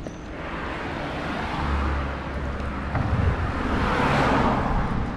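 Road traffic: the hiss of a vehicle's tyres and engine swells to a peak about four seconds in, then begins to fade, over low rumble.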